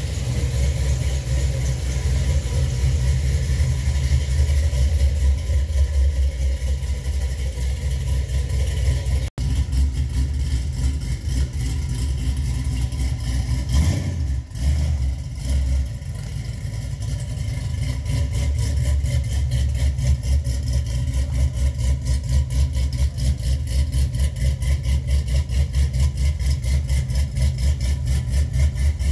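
Chevrolet C10 square-body pickup's swapped-in 5.3-litre LS V8 running at idle, with a regular pulsing beat through the second half.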